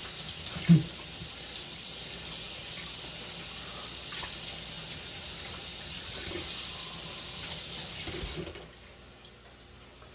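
Tap running into a sink while hands are washed under it, shut off about eight and a half seconds in. One sharp knock less than a second in.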